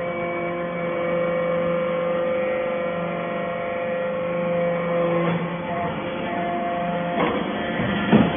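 Hydraulic power unit of a metal-chip briquetting press running: its electric motor and hydraulic pump make a steady hum with several held tones. The tones change pitch about five seconds in, and two short knocks come near the end, the second one loudest.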